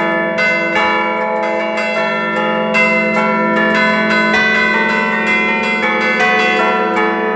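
Several church bells ringing together, heard from inside the belfry: quick, overlapping strikes over the steady hum of the larger bells, with no pause.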